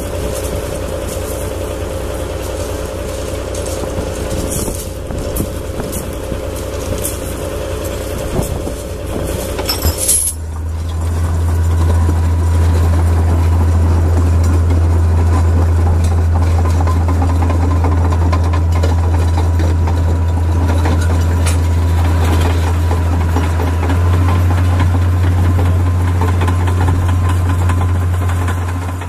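Diesel engine of a lifeboat launch-and-recovery tractor working under load while a lifeboat is hauled onto its carriage. About ten seconds in it rises to a loud, steady low drone with a thin whine above it, and it steps up a little again near the end.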